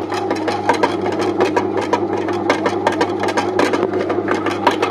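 Electric dough kneader running, its motor humming steadily while the kneading paddle turns a finished ball of dough in the metal pan, with rapid, irregular knocking as the dough slaps against the pan.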